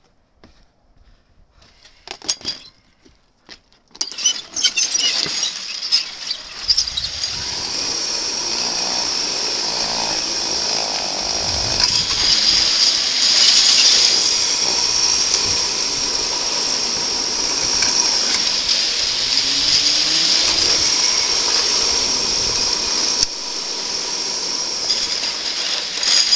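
Rollers of a long roller slide rattling and whirring under a rider sliding down, with a steady high whine over the rattle. It starts about four seconds in after a few knocks and stops near the end.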